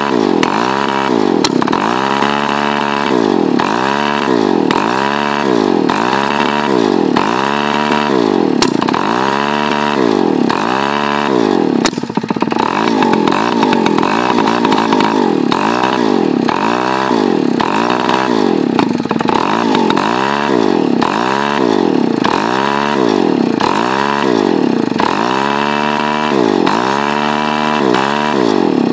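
Tomos A35 moped's small two-stroke single-cylinder engine running, its revs rising and falling over and over in an even cycle a little faster than once a second.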